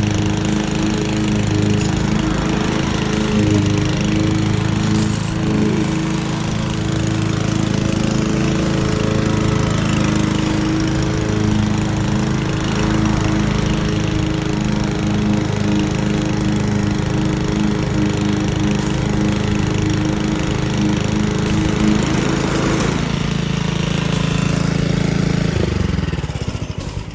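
Toro walk-behind rotary mower's small gas engine running steadily while it cuts grass. Its note changes about twenty-three seconds in, and the sound drops away near the end.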